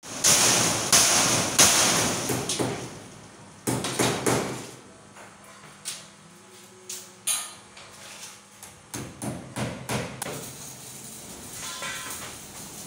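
Irregular hammer blows and bangs on metal, each ringing and echoing in a large metal shed. A run of loud strikes fills the first five seconds, a few quieter knocks follow, and another run comes about nine to ten seconds in.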